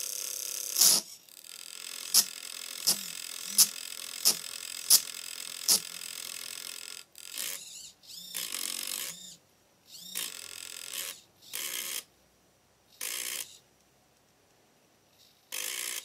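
Computer cooling fan and hobby servos of a homemade sound device. It starts with a steady whir with tones and a sharp crack about a second in, then sharp clicks about every 0.7 s for a few seconds, then a series of short noisy bursts of half a second to a second, separated by near silence.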